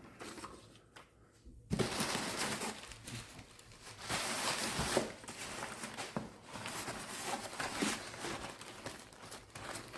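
Packing material rustling and crinkling as it is handled, starting after a second or two of quiet and going on unevenly, louder and softer by turns.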